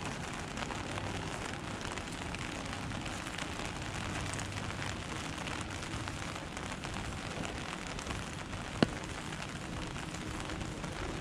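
Rain falling steadily, with one sharp click about nine seconds in.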